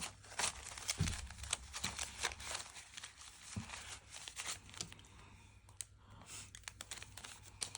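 Paper banknotes and envelopes rustling and crinkling as they are handled, with many light crisp ticks and a soft thump about a second in.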